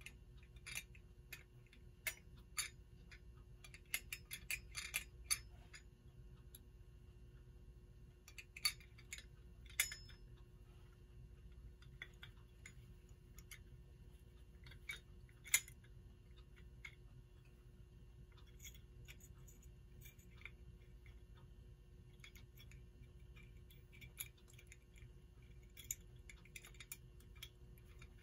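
Small metal parts of a Telechron clock movement being handled and fitted by hand: light, irregular clicks and taps, bunched in the first few seconds and again near the end, with the sharpest click about halfway through.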